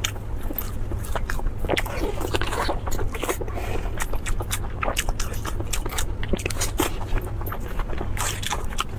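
Close-miked eating of crispy food: irregular crunchy bites and chewing crackles, over a steady low hum.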